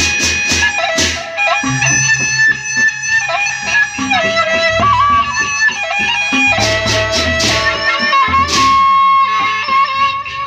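Lombok gendang beleq ensemble music: a bamboo suling flute plays a sustained, stepping melody over beats of the large barrel drums. Clashing cymbals come in near the start and again for a few seconds after the middle.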